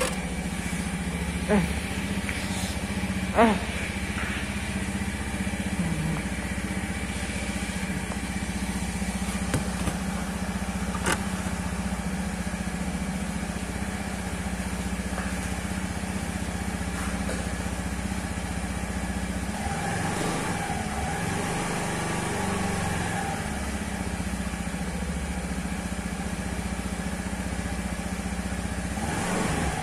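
Honda Scoopy 2013 scooter's single-cylinder engine idling steadily just after a cold start, with a few short clicks in the first few seconds.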